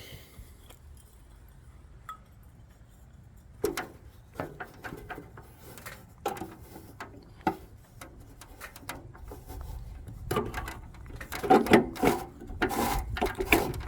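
Handling clicks, knocks and scraping as a new SOX 35W low-pressure sodium bulb is fitted into the socket of a street-lamp fixture. They start after a few quiet seconds and come thickest near the end.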